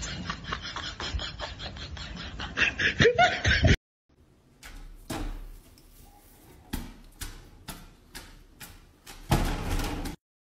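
Clear plastic dome-style dog door flap knocking and clattering several times as a dog pushes through it, loudest near the end. Before that, a cat gives a short rising call over handling noise.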